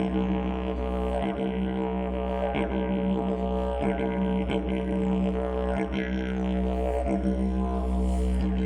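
Didgeridoo playing a continuous low drone, its overtones shifting, with a few short accents breaking into the tone.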